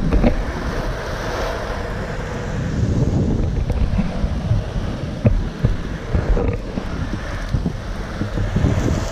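Loaded Icarus longboard's urethane wheels rolling over asphalt in a steady roar, mixed with wind buffeting the microphone as the board moves. A few short knocks cut through, two of them close together a little past halfway.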